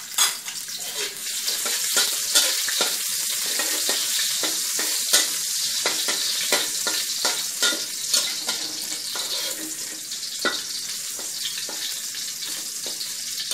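Minced garlic sizzling in hot oil in a wok, frying until fragrant, with a metal wok spatula scraping and tapping against the pan as it is stirred.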